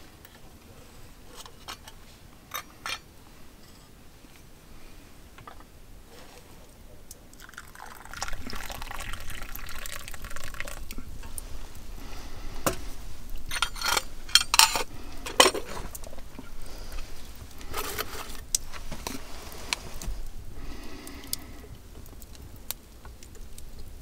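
A few faint clicks, then from about eight seconds in, liquid splashing or being poured, mixed with sharp knocks and clatters of handled objects; the loudest knocks come about two-thirds of the way through.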